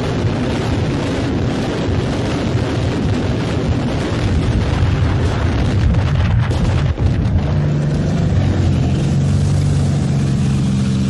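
Truck-mounted multiple rocket launchers firing a salvo, with the rockets striking along a shore: a dense, continuous rushing roar that dips briefly about seven seconds in. After that a steady low engine drone from an amphibious armoured personnel carrier takes over.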